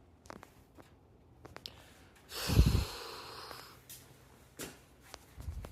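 A woman sneezes once, loudly, a little over two seconds in, the burst trailing off over about a second; faint breaths come before and after it.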